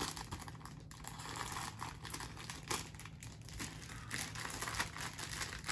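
Plastic wrapping around LEGO instruction booklets crinkling as it is cut with scissors and torn open by hand, with irregular crackles throughout.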